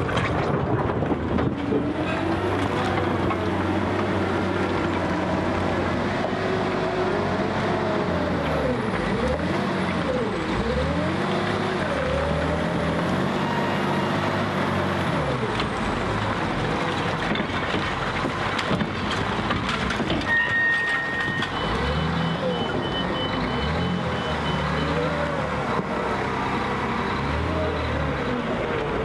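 Liebherr L566 wheel loader's diesel engine running under load, its pitch rising and falling again and again as the machine pushes and tips rubble, with a thin high whine over the first half. About two-thirds of the way through, a short run of high repeated beeps.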